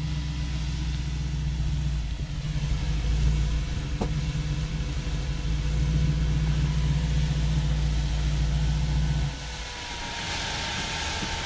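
A car engine idling with a steady low rumble, cutting off about nine seconds in. After that, a quieter whirring hiss of electric cooling fans is left.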